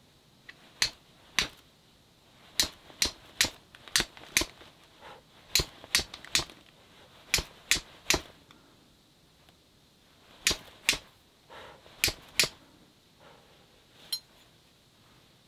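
C-shaped fire steel striking a flint with tinder held against it: about eighteen sharp, ringing metallic clicks, mostly in quick runs of two or three, with short pauses between runs as the striker throws sparks onto the tinder.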